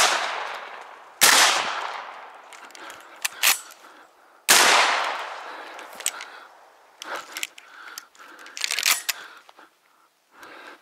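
Three shots from a Browning Auto-5 semi-automatic shotgun: the first right at the start, the second about a second later, the third about three seconds after that. Each is a sharp crack followed by a long echoing tail. A few lighter clicks and knocks come after the shots.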